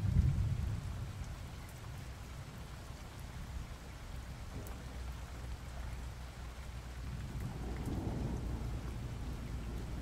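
Steady rain falling, with low thunder rumbling: a loud rumble right at the start that fades within about a second, and another swell of thunder around eight seconds in.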